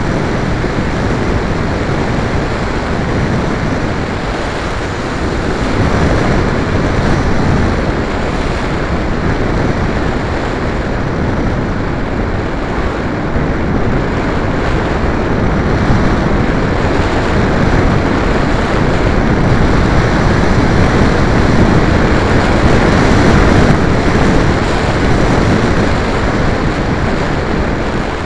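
Wind rushing over the onboard camera's microphone on an RC glider in flight: a loud, steady rush of noise that rises and falls a little with the airspeed.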